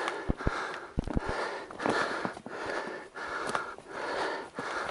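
A hunter breathing hard from exertion on foot, about one loud breath a second, with footsteps thudding between the breaths.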